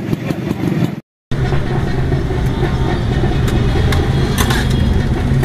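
A motor vehicle engine idling with a steady low hum amid street noise, with a few light clicks of a spoon on steel trays. The sound drops out completely for a moment about a second in.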